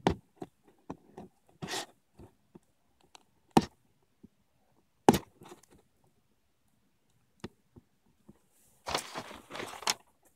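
A cardboard toy box with a plastic window being handled close to the microphone: a few sharp knocks and taps, a short scrape about two seconds in, and a longer scraping rustle near the end.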